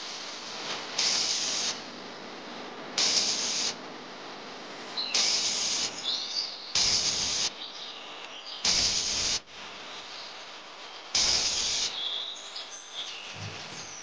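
Small trowel scraping and scooping damp, gritty sand-cement mix into a small bowl: six short, hissy scrapes about two seconds apart.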